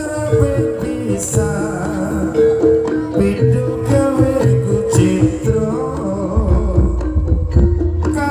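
Live Javanese gamelan music driven by kendang hand drumming, with held melodic notes over a dense drum pattern.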